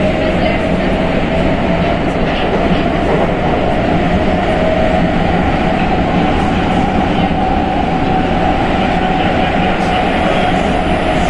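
Prague Metro 81-71M train running steadily on the rails, a continuous rumble with a whine that rises slightly in pitch over the first several seconds and then holds steady.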